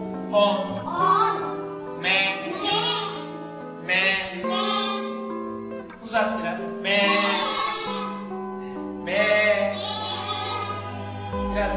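A man singing a syllable song in short phrases over instrumental backing music.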